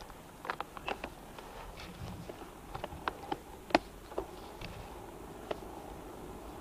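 Titanium Bacchetta recumbent bicycle rolling off slowly, with scattered irregular clicks and knocks from the bike over a light, steady wind noise; the sharpest click comes about halfway through.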